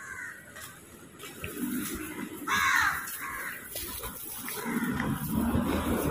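A crow cawing repeatedly outdoors, a series of short, harsh calls, the loudest about two and a half seconds in.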